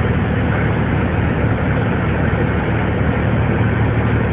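ElDorado EZ-Rider II transit bus engine idling steadily while the bus stands still, heard from inside the passenger cabin as a low, even hum.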